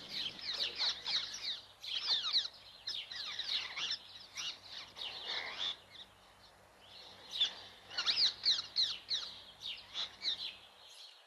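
Sparrow chirping over and over: quick, high chirps that fall in pitch, coming in bursts, with a thinner spell in the middle and a second busy run near the end.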